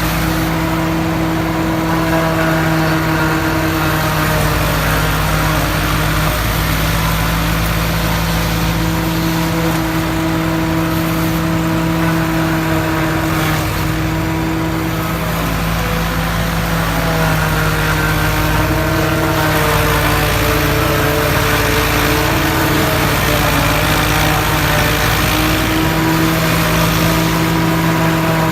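Tractor-driven silage choppers running steadily as they chop maize, engine and chopper drum making a loud, continuous hum whose pitch sags and recovers slightly a few times as the load changes.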